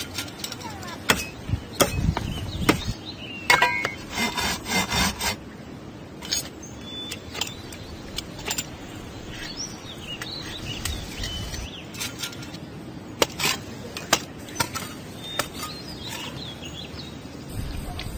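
Stainless steel grinder parts being handled and fitted together: scattered sharp clicks and metal clinks, thickest in the first five seconds and sparser after, with no motor running.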